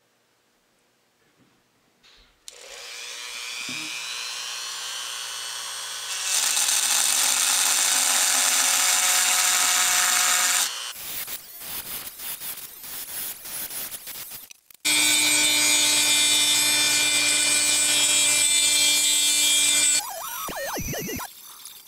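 Handheld high-speed rotary tool with a thin bit cutting slots in the wooden bridge and nut of a homemade electric oud. It runs with a steady whine that grows louder about six seconds in, turns choppy for a few seconds, runs steady again, then winds down near the end.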